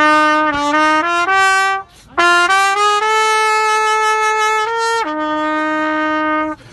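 Solo trumpet playing a slow melody of long held notes. It breaks off briefly about two seconds in and ends on a long lower note.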